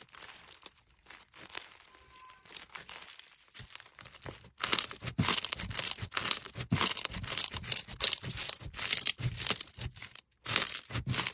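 Slime being squeezed and stretched by hand, making crackling, popping clicks. It is faint and sparse at first, then turns loud and dense about four and a half seconds in, pausing briefly near the end.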